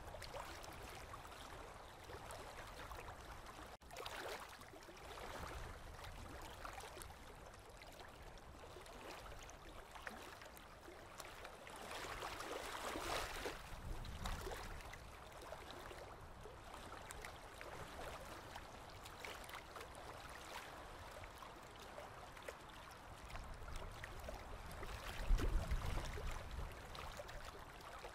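Small river waves lapping and washing onto the shore in a steady watery wash, with a brief low rumble near the end.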